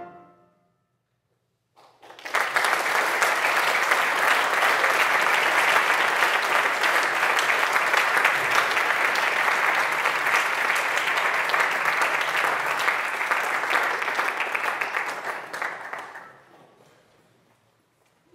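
The last note of a piece dies away, and after a brief silence an audience applauds for about fourteen seconds before the clapping tapers off.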